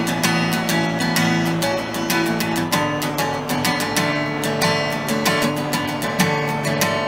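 Acoustic guitar strummed in a steady rhythm, with held chords and a chord change about three seconds in.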